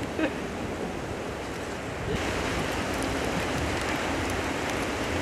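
Steady rushing hiss of wind on the microphone outdoors in a snowstorm, stepping up louder about two seconds in.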